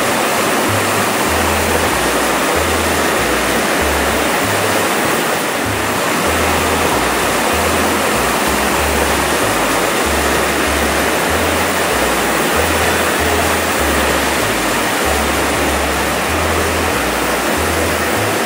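Brewery canning line running: a loud, steady, dense noise of beer cans rattling and jostling along stainless steel conveyors.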